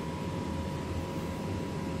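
Gas furnace running with a steady low hum and rush of air, and a faint steady high whine over it.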